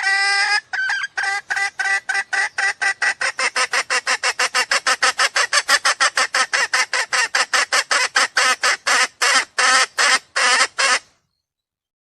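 Jungle fowl lure call: one long opening note, then a fast run of short, evenly spaced clucks at about four a second, slowing a little near the end and stopping abruptly.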